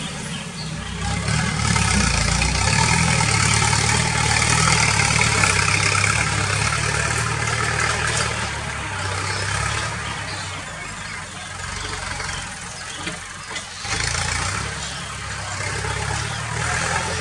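Farm tractor engine running steadily as the tractor works the field. It grows louder a second or two in, eases off past the middle, and picks up again near the end.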